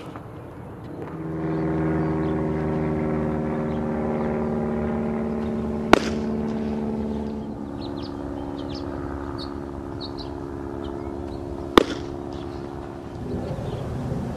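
Pitched baseballs smacking into a catcher's leather mitt, two sharp pops about six seconds apart, over the steady hum of a running engine.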